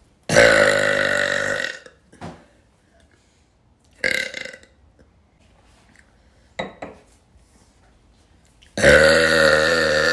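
A young woman burping: a long, loud burp of over a second near the start, a few short, quieter sounds in the middle, and a second long, loud burp near the end, one she then says was stuck and that she could feel.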